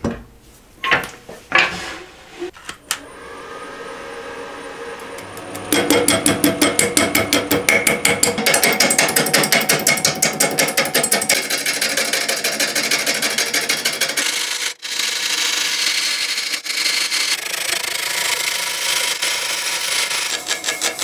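A few sharp knocks, then from about six seconds in a wood lathe turns a cast blank of cork in epoxy resin while a gouge cuts it, making a rapid, rhythmically pulsing scraping and cutting noise.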